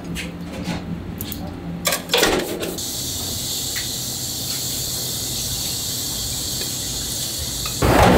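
Tongs and plates giving a few light clicks and knocks, then a steady high hiss that starts about three seconds in and cuts off sharply near the end.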